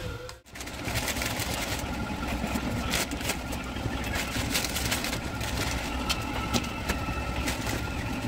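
Plastic instant-noodle packet being torn open and rustled, with scattered crackles, over a steady low rumble.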